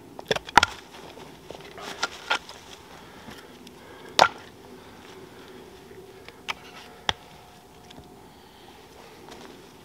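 A bearded axe splitting a frozen log on a chopping block, with sharp cracks within the first second. Scattered wooden knocks follow as split pieces are handled and a fresh log is set on the block.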